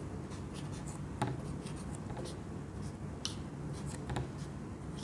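Whiteboard marker drawing on a whiteboard: a series of short, scratchy strokes and light taps of the tip, over a steady low room hum.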